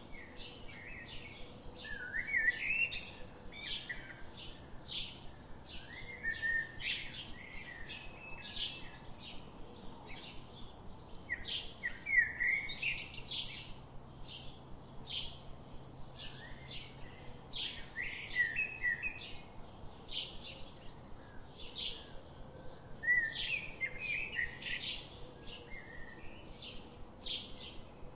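Birds chirping: a steady run of short, high chirps, about two or three a second, with a warbling phrase every few seconds.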